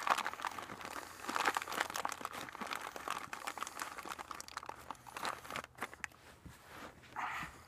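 Plastic parts bag crinkling and rustling as hands rummage in it for a small washer: a dense run of crackles that gradually thins out.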